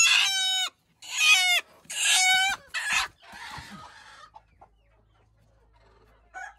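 Desi chickens calling: four loud, drawn-out calls in the first three seconds, each dropping in pitch at its end, then quiet.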